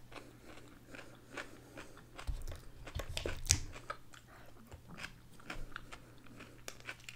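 Close-up chewing and crunching of a mouthful of coleslaw, with many small wet clicks and smacks. A low dull bump of handling comes between about two and three and a half seconds in.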